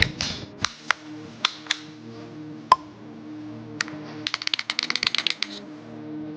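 Gel blaster firing a handful of single shots as sharp clicks, then a fast automatic burst of about a second, over background music.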